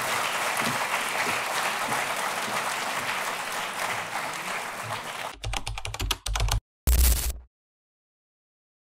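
Audience applauding, a dense crackle of many hands clapping that cuts off abruptly about five seconds in. It is followed by a brief low, pulsing sound effect in two parts, then silence.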